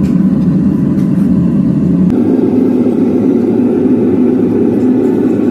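A loud, steady engine or motor running continuously, its tone shifting slightly about two seconds in.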